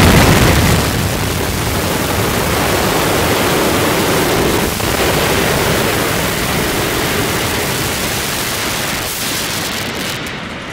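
Explosive demolition of a concrete-and-steel stadium grandstand. It opens with the loudest moment, the blast of the demolition charges, then gives way to a long steady crashing roar of the structure collapsing and debris falling, which fades near the end.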